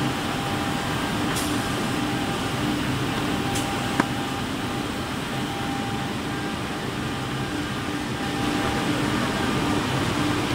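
Steady hum and noise of a running six-sided CNC drilling machine and its outfeed belt conveyor, with faint steady tones that come and go. A single sharp click about four seconds in.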